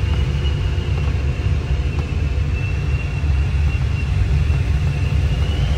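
Steady rush of air streaming over a glider's canopy in flight, heard from inside the cockpit as a dense low rumble, with a faint thin high tone running through it.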